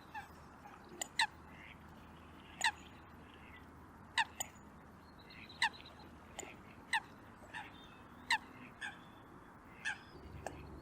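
Eurasian coots giving short, sharp, pitched calls, one about every second, some louder and nearer than others.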